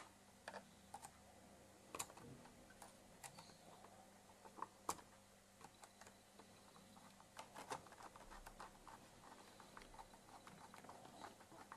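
Faint, scattered clicks and light taps from fingers handling a small screw and earth wire against the metal heater block and plastic housing of an opened capsule coffee maker, the sharpest clicks about 2 and 5 seconds in.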